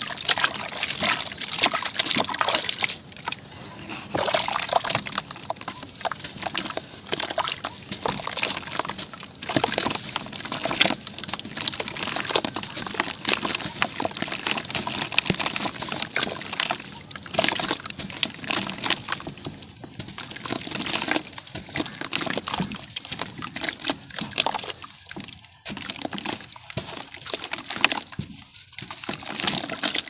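A soaked cylinder of red dirt squeezed and broken up by hands in a basin of muddy water: continuous irregular wet squelching and sloshing, a little quieter in the last few seconds.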